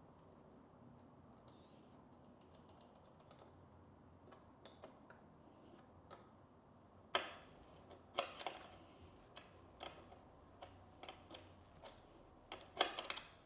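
Scattered small clicks and taps of hand tools and small metal hardware being handled while nuts are tightened to fasten a mirror block-off plate on a motorcycle. A few sharper clicks about seven and eight seconds in, and a cluster near the end.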